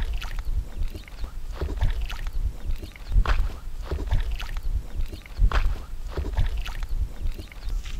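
Hands scooping and splashing water in a shallow hot-spring pool, one to two splashes a second, over a steady low wind rumble on the microphone.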